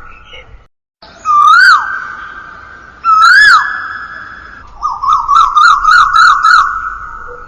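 Bird-call ringtone: whistled birdsong played on a loop. After a brief silence about a second in come two separate swooping notes that rise then drop, each trailing a long echo, followed by a quick run of about eight short notes, roughly four a second.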